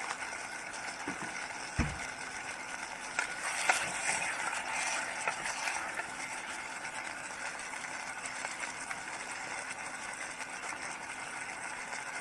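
Pot of cabbage, tomato and sardines sizzling on the stove, with a wooden spatula stirring and scraping through it for a few seconds partway through, and a single dull knock about two seconds in.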